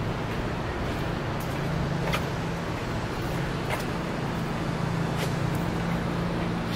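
Street traffic: a steady low engine hum over road noise, with a few faint clicks.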